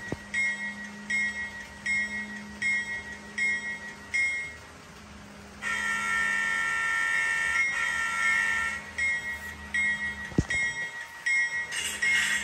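Simulated diesel locomotive sound from the sound decoder of a Kato N scale GE AC4400CW model: the bell ringing at about two strokes a second, broken in the middle by a horn blast of about three seconds, then the bell again. A short, loud falling blip near the end of the horn section.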